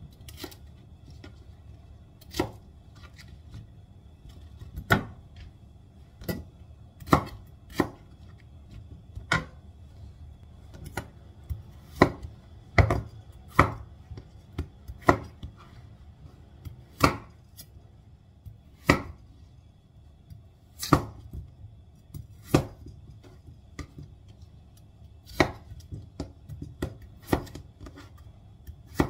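Chef's knife cutting bell peppers and peeled potatoes on a wooden cutting board, the blade knocking on the board in sharp single strokes at an irregular pace, about one a second, sometimes two in quick succession.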